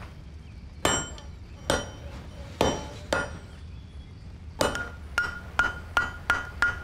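Blacksmith's hand hammer striking a red-hot kris blade on a steel anvil as the blade is forged. Four spaced blows come first, then after a short pause a quicker run of lighter blows, about three a second, each with a short metallic ring.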